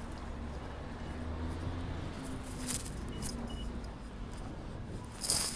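Footsteps on wet paving with a few sharp clicks, over a steady low rumble that fades after about two seconds; a short louder rustling clatter comes near the end.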